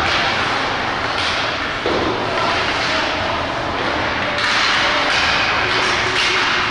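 Ice hockey game ambience in a rink: a steady wash of noise from play on the ice, with faint, indistinct shouts.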